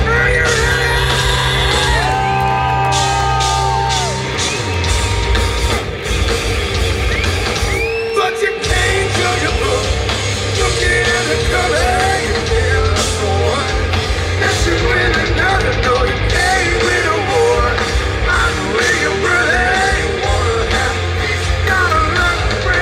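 Rock band playing loud and live: drums, bass and electric guitar, with a singer yelling and singing over them. The band drops out briefly about eight seconds in, then comes back in full.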